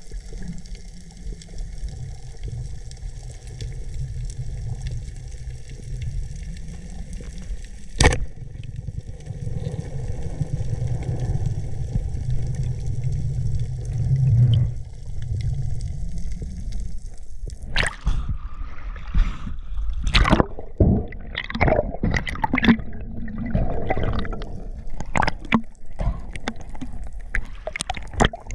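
Water gurgling and sloshing, with a steady low rumble under it for the first half. From a little past halfway it turns into a busy run of sharp knocks and splashy bursts.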